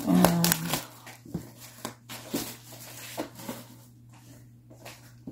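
Quiet, scattered rustles and taps of a cardboard gift box being handled, after a short vocal sound at the start.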